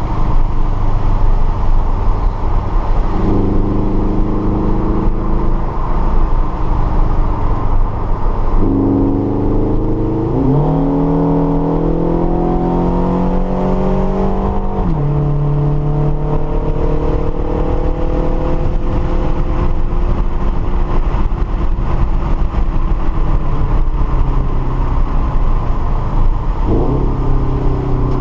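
Subaru BRZ's flat-four boxer engine, fitted with unequal-length headers and a Perrin exhaust, heard from inside the cabin under hard driving over steady road rumble. The engine pitch climbs from about a third of the way in and drops sharply at an upshift about halfway through. It then falls slowly for a long stretch before a quick dip and rise near the end.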